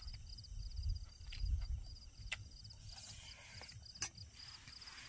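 Crickets chirping steadily in rapid, evenly repeated pulses, with a few low bumps and sharp clicks of camp cookware being handled, the sharpest about four seconds in.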